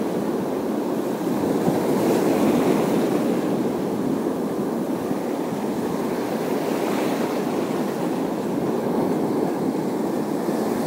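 Sea waves washing on a rocky shore: a steady rushing noise that swells a little about two seconds in, with wind buffeting the microphone.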